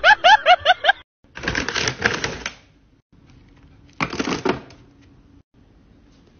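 A quick run of short rising squeaky calls in the first second. Then a large plastic dog-food bag rustles and crinkles in two bursts as a hand reaches into it, with a faint steady low hum between.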